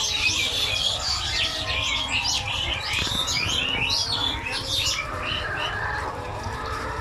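A flock of chickens in a poultry shed, many calling at once in short, overlapping chirps and squawks over a steady low rumble, busiest for the first five seconds and thinning toward the end.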